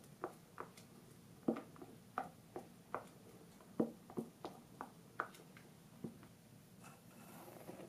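Spatula knocking and scraping against a glass mixing bowl while folding meringue into cake batter: soft, irregular knocks, two or three a second, that stop about six seconds in.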